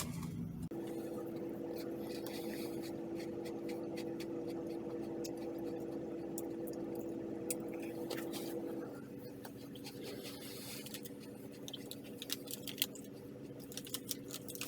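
Someone eating crunchy MRE cookies: small crunches and packaging crinkles, busier toward the end, over a steady low hum.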